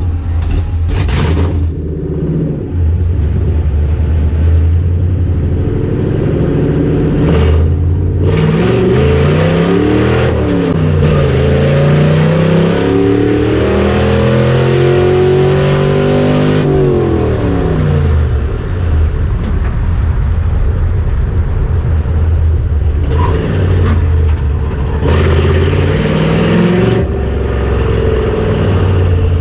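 Car engine running, then accelerating hard with its pitch climbing, dropping once as a gear is changed, climbing again and falling away as it slows; a shorter run up in revs follows near the end.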